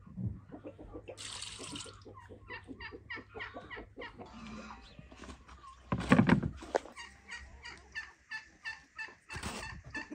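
Domestic chickens clucking in a steady run of short calls, two or three a second. A louder, fuller burst comes about six seconds in.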